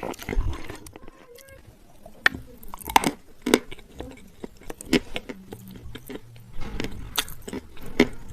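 Close-up chewing of crunchy edible clay, with sharp, irregular crunches and snaps as the pieces are bitten and broken in the mouth.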